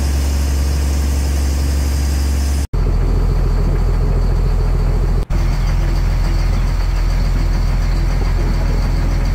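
Fishing boat's engine running steadily under way, a loud, even low hum. It drops out for an instant twice, about two and a half and five seconds in.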